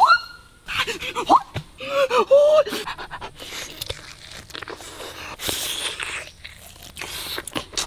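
Heavy breathing with a few short pitched vocal sounds, then irregular noisy biting and chewing as a man tears into a whole roast chicken.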